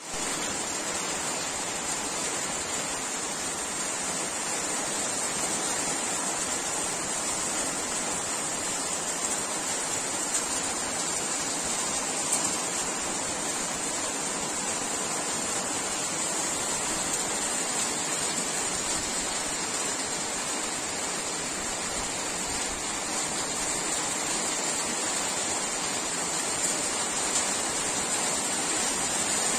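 Steady rain falling, an even continuous hiss with a few brief louder drops standing out now and then.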